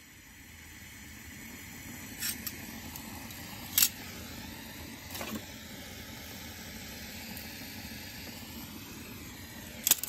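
Steady gas hiss from a brazing torch, with four sharp metallic clinks of copper tubing and tools being handled, the loudest about four seconds in and near the end.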